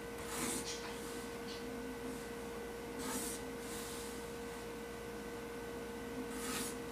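Three short scratchy strokes of a felt-tip marker drawn along a plastic set square on pattern paper, over a steady faint hum.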